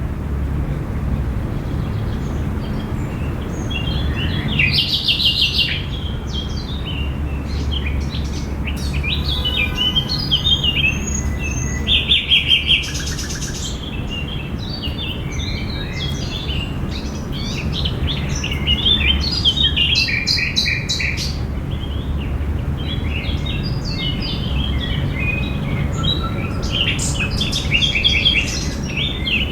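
Park ambience: several songbirds chirping and singing in short, overlapping calls and trills, over a steady low background rumble.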